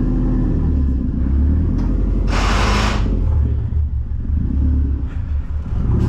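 2010 Subaru WRX's turbocharged 2.5-litre flat-four engine running and revving, with a brief loud hiss of turbo air about two and a half seconds in.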